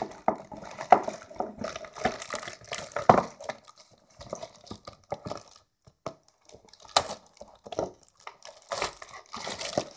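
Cardboard box and packaging being opened and handled: irregular rustling and crinkling with scattered sharp clicks and taps.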